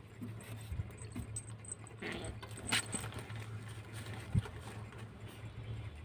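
Kittens play-fighting on a tiled floor: scattered light taps and scuffles of paws, a sharper click a little before the middle and a dull thud later. A steady low hum runs underneath.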